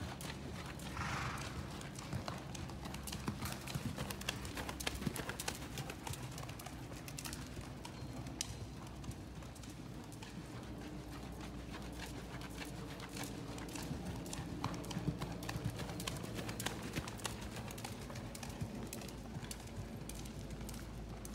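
Hoofbeats of a horse cantering on soft dirt arena footing under a rider, a continuing run of dull thuds.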